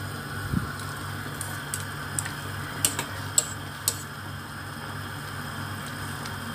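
Chopsticks clicking against a stainless steel pot while blanching greens: about seven sharp ticks between one and four seconds in, over a steady low hum and faint hiss from the pot.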